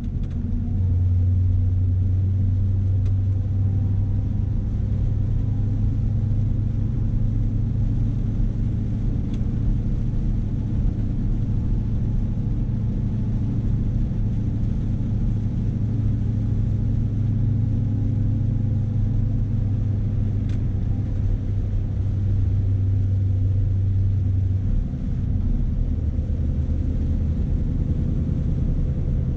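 Scania S520's V8 diesel engine running steadily as the truck drives, pulling a 48-tonne load: a steady low drone that eases off near the end.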